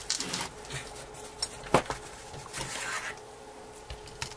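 Small clicks and scrapes of hand tools prying at the opened iPhone 3GS and being set down and picked up, with one sharp click about two seconds in. It is the sound of working at a stuck part inside the phone.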